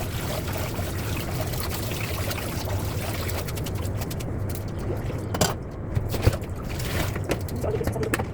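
Water pouring and splashing in a steady stream, likely boiled noodles being drained, then a few sharp knocks of kitchen utensils in the second half.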